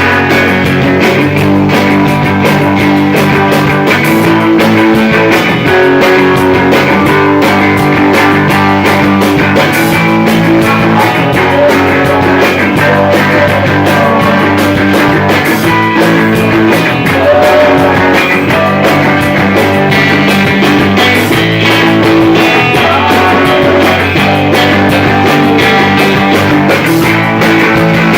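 Rock band playing live: loud electric guitar over a dense, steady full-band backing.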